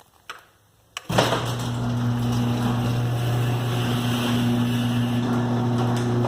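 Fire alarm horn sounding a steady buzz, switched on abruptly about a second in after a couple of clicks.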